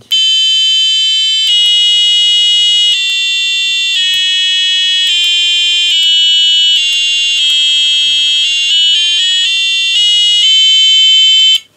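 Lekato Flanger FMT-209 clip-on tuner's built-in speaker sounding its reference tone, a loud electronic note starting at A4 (440 Hz). The note steps to a new pitch every second or so as the key is changed, stepping down and then back up with quicker steps in the middle, and cuts off suddenly near the end.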